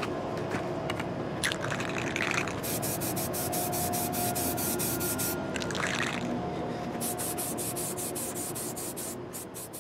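Aerosol can of 2-in-1 filler primer spraying a first light coat, hissing in bursts: two short ones and two long passes of about three and two seconds.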